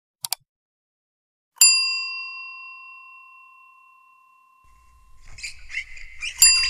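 Subscribe-animation sound effects: a quick double mouse click, then a bell ding that rings out and fades over a few seconds. A rustling, wiping noise follows, and a second bell ding comes near the end.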